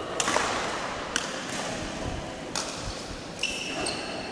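Badminton rally: several sharp racket strikes on a shuttlecock, roughly a second apart. Sneakers squeak on the court floor near the end.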